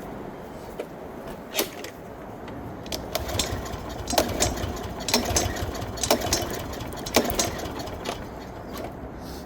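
Walk-behind lawn mower engine being pull-started with its recoil cord, a series of sharp pulls with the engine turning over between them but not catching. The mower has sat unused for about four years, and its fuel line turns out to be blocked.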